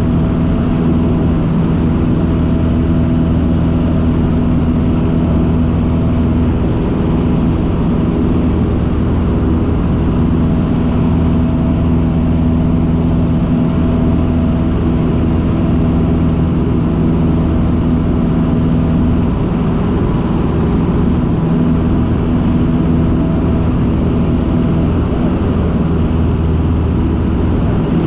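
Cessna 150's Continental O-200 four-cylinder engine and propeller running steadily in flight, heard inside the cockpit as a loud, even drone with airflow noise.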